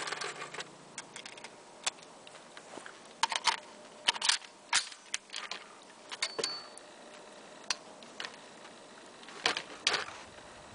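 Scattered sharp clicks and small metallic rattles of a scoped bolt-action rifle and gear being handled at a shooting bench. The clicks are irregular and bunch up in the middle and again near the end.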